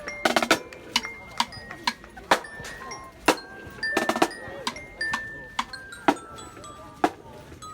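High school marching band percussion: sharp drum strikes, some in quick clusters, with single high notes between them that step downward in pitch.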